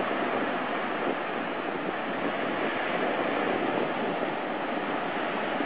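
Surf breaking and washing over a shallow sandy beach, a steady rush of water noise.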